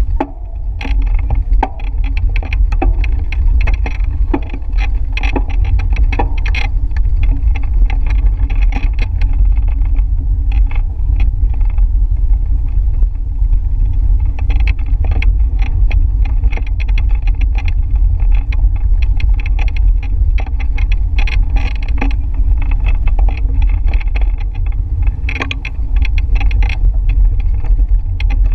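Wind buffeting the microphone of a handlebar-mounted camera on a moving bicycle: a steady low rumble, broken by frequent small rattles and clicks from the bike over the road surface.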